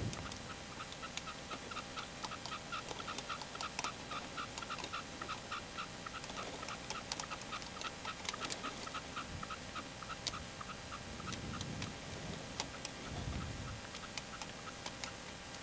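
Red-legged partridge calling: a rapid run of short, even notes, about five a second, mixed with sharp clicks, falling away after about eleven seconds.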